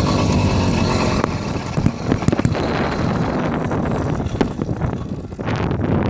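80cc two-stroke motorized-bicycle engine running as the bike slows to a stop, with wind buffeting the microphone and scattered knocks; the loudness dips about five seconds in. The engine does not run right, which the owner puts down to it running extremely rich.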